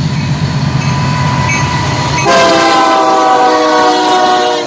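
Diesel freight locomotives rumbling past close by. About halfway through, a locomotive air horn starts: a steady chord of several notes, louder than the engines, held until near the end.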